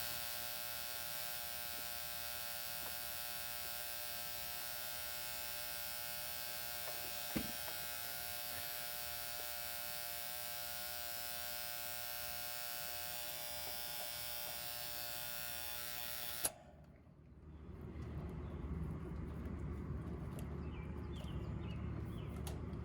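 Contactor relay in an air-conditioner condenser making a steady electrical buzz, which cuts off suddenly about sixteen seconds in. The buzz comes from a cheap contactor with a small part that can come loose, a fault cured by replacing the contactor.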